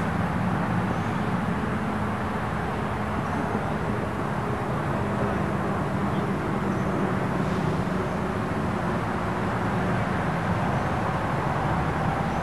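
Steady outdoor background rumble with a faint low hum, without distinct events.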